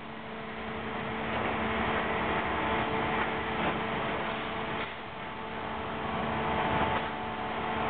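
Fishing-vessel machinery running with a steady hum and a few faint knocks.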